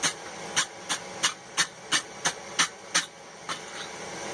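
Wire brush scrubbing scale off the hot steel in quick, even strokes, about three a second, stopping about three seconds in; two faint strokes follow.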